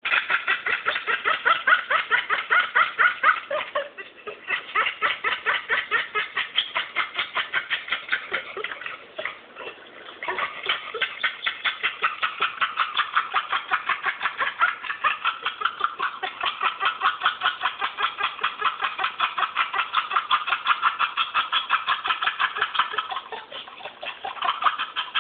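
A dog's rapid, rhythmic panting 'laugh', played back from a laughing-dog recording: a long run of short huffs, several a second, breaking off briefly about four seconds in, around ten seconds in, and near the end.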